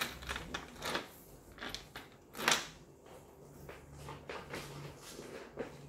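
A quilted leather handbag with a chain strap being lifted and handled on a tabletop: several short knocks and rustles, the loudest about two and a half seconds in.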